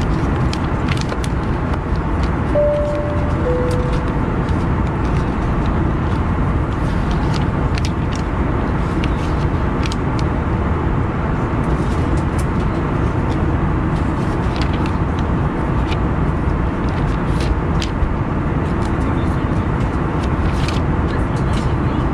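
Steady cabin rumble inside an Airbus A321-231 airliner, the noise of its IAE V2500 engines and the air around the fuselage. About three seconds in, a two-note cabin chime sounds, high then lower.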